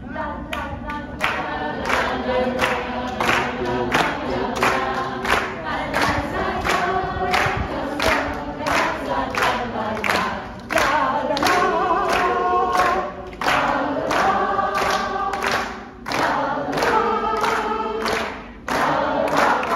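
A roomful of people singing a song together, clapping in time with a steady beat.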